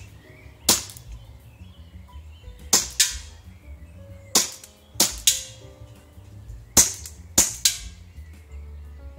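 Action Army AAP-01 gas-blowback airsoft pistol fired shot by shot. There are about nine sharp pops at an uneven pace, some in quick pairs.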